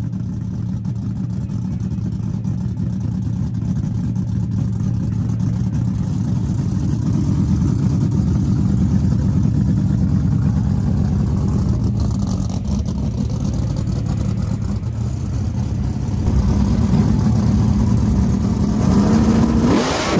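Street drag car's big V8 idling with a lumpy, loping rumble as it rolls up to the line, then revving sharply upward right at the end as it launches.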